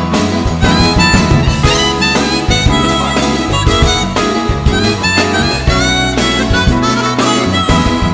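Chromatic harmonica playing a melodic solo into a close microphone over a live band with bass, drums, guitar and keyboards.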